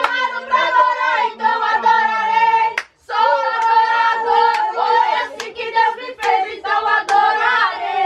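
A group of people singing a Christian worship song together in held, sustained notes, with a few scattered handclaps.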